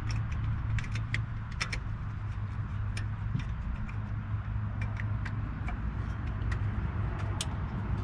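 Irregular light clicks and ticks of hand work with a tool at a rear brake caliper, over a steady low hum.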